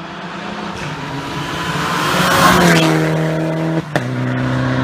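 Rally car coming through at speed on a wet tarmac stage: a rush of tyre and spray noise builds to a peak about halfway, and the engine note drops as the car goes by. A sharp click comes near the end, then a rally car's engine holds a steady note.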